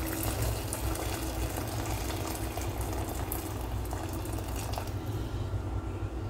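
Hot water being poured steadily into a rice cooker pot, splashing over diced chicken and carrots as the pot fills.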